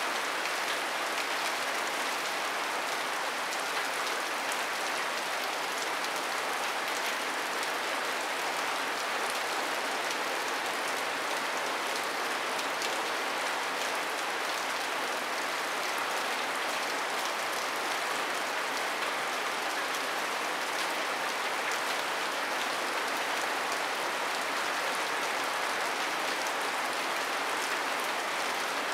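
Steady rain falling on a sago-palm thatch roof: an even hiss dotted with fine drop ticks, unchanging throughout.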